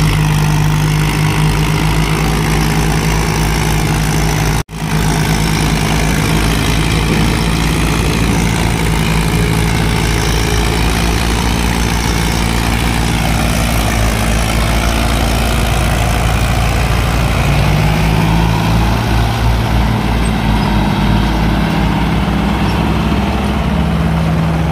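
Diesel tractor engines running hard under load as a Mahindra Arjun 555 DI on a tow chain helps a John Deere 5042D haul a fully loaded trolley uphill. The engine note rises and falls a few times, and the sound cuts out for a split second about five seconds in.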